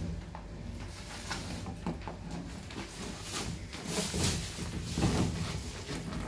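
A handheld painting tool dragged in repeated strokes across a canvas thick with wet paint, giving a run of irregular scraping swishes, loudest about four and five seconds in.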